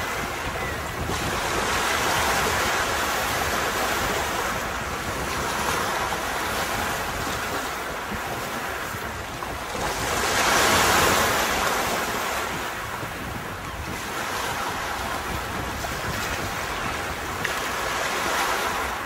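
Sea waves washing onto a beach: a continuous surf wash that swells and eases, loudest about halfway through as a bigger wave comes in.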